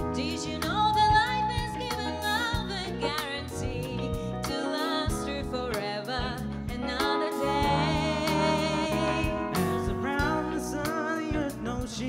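Live band playing a soul song, drums keeping a steady beat under bass and keys, with a voice singing long wavering notes.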